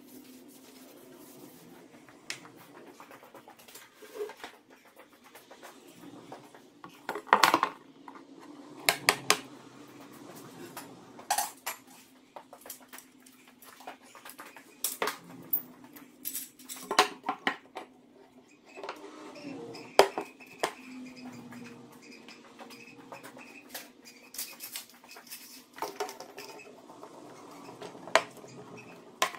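Scattered sharp knocks and metallic clinks of clamps and tools being handled while a mitered walnut slab joint is clamped up, with a steady low hum behind them.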